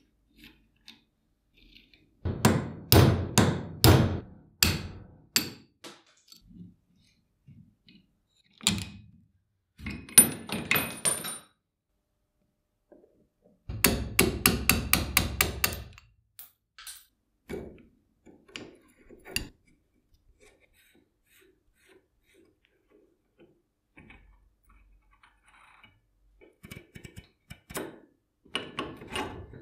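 Hammer tapping a pin punch and steel parts of an old cast-iron saw blade tooth setter during dismantling: a run of sharp metallic taps about three a second, then scattered strikes with a brief high ring, then a quicker run of about six taps a second, with lighter clinks near the end.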